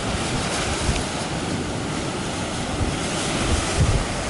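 Pacific surf breaking and washing against a dark lava sea cliff and arch, a steady rushing wash, with wind gusting on the microphone, most strongly a little before the end.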